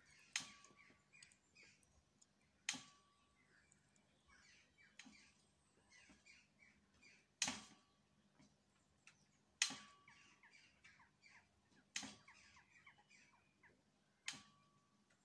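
Faint songbirds chirping and singing in a garden. A sharp tap with a short ringing note repeats about every two seconds, louder than the birds.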